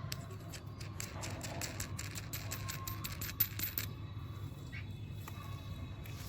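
A rapid run of small sharp clicks for about four seconds, stopping well before the end, over a steady low hum.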